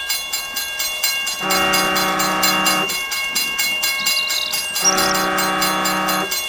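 Train running with a fast, even clatter of wheels over rail joints, sounding two horn blasts of about a second and a half each.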